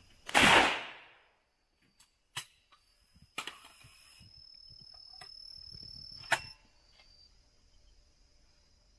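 A single shotgun shot at a clay target, its sound fading over about a second, followed a few seconds later by several sharp clicks, the loudest near the end.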